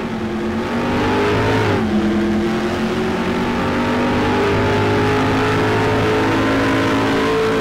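Car engine accelerating hard. Its pitch climbs, drops sharply at a gear change about two seconds in, then climbs steadily again.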